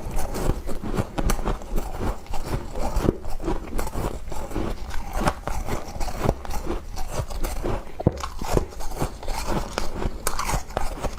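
Close-up crunching and chewing of a mouthful of frost, with rapid, irregular crackles throughout.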